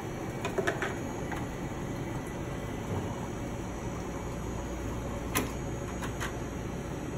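Hot water running from a coffee brewer's hot-water faucet into a stainless steel gooseneck kettle as it is filled all the way up. A few sharp clicks are heard, the loudest about five seconds in.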